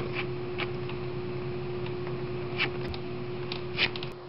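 A few short scrapes and ticks of a plastic scraper smoothing foam filler over a foam wing's leading edge, the loudest near the end. A steady electrical hum with a higher steady tone runs underneath.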